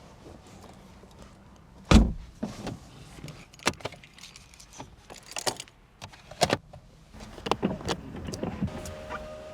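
Handling sounds from a 2021 BMW 420i convertible: one heavy door-shutting thump about two seconds in, then a run of sharp clicks and knocks from latches and controls. A steady tone with a higher overtone starts near the end.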